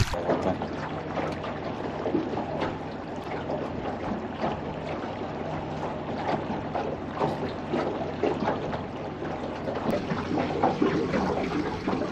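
Water lapping and sloshing against a small boat's hull in a light chop: a steady wash of small irregular splashes and patters over a low steady hum.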